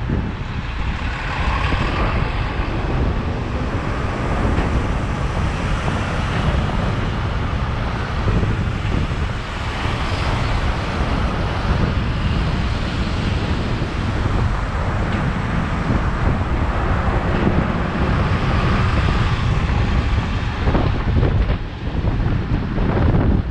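Wind buffeting the microphone of a camera on a moving bicycle, over steady city traffic noise from cars and a bus alongside.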